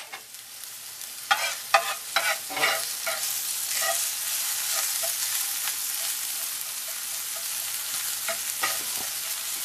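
Minced shallots sizzling in butter in a cast-iron skillet as they caramelize, with a metal spatula scraping and stirring them across the pan, a few quick strokes between about one and three seconds in, then a steady sizzle.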